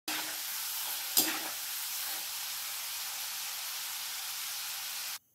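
Small cubes of elephant yam deep-frying in hot oil in an aluminium kadai: a steady sizzle, the sound the cook wants so the pickle keeps without spoiling. About a second in, a sharp metal clank of the slotted spoon against the pan; the sizzle cuts off abruptly near the end.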